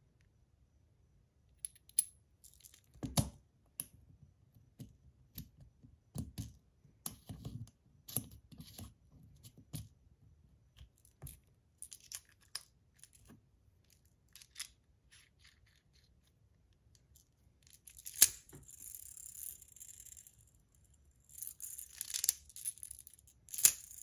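Sharp metal clicks and clacks of a PillBug fidget toy being handled, with its loose balls clicking into their pockets and the shell segments clicking shut. About 18 seconds in, a hissing rattle with a few loud clicks comes in twice as the toy is spun with the balls inside.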